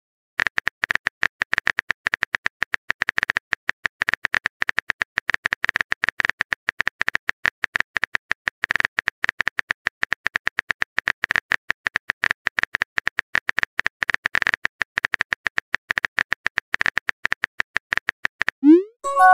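Phone keyboard typing clicks, a rapid run of short ticks many times a second that keeps going for about eighteen seconds as a long message is typed. Right at the end, a rising swoosh and a chime begin as the message is sent.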